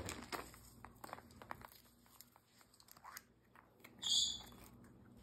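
Faint small clicks and crinkling of plastic Easter eggs being pulled apart and candy handled, with a short hiss about four seconds in.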